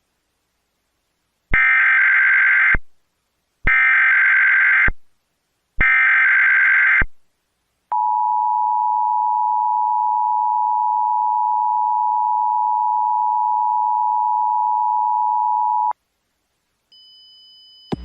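Emergency Alert System SAME header: three identical bursts of data warble, each about a second long, followed by the EAS two-tone attention signal, a steady dual tone held for about eight seconds. Together they announce the tsunami warning message that follows.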